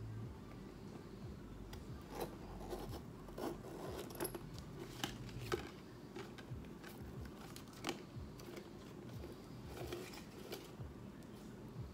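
Michael Kors satchel being handled and opened: light clicks and rubbing from its hardware and wrapped handles as a hand reaches inside. Most of the clicks come in a cluster in the first half, with a few more later.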